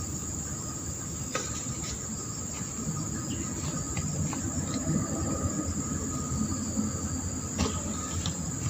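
Insects droning with one steady high-pitched tone, over a low rushing noise that grows a little louder about halfway through. A few scattered clicks and taps.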